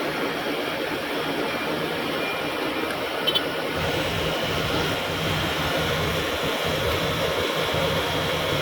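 An engine running steadily with a noisy hum, with a couple of faint clicks about three seconds in.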